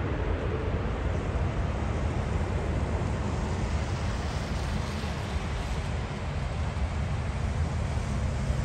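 Airbus A380-800's jet engines during the landing rollout: a steady low rumble with no clear events, mixed with wind noise on the microphone.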